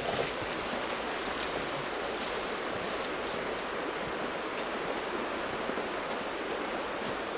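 River water flowing, a steady, even rushing.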